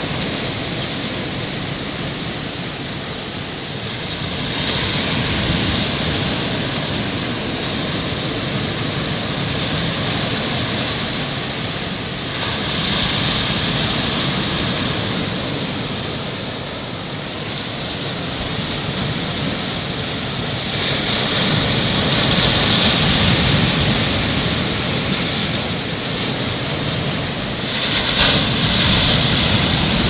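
Sea surf: small waves breaking on the shore in a steady rush, swelling louder every several seconds as each wave breaks.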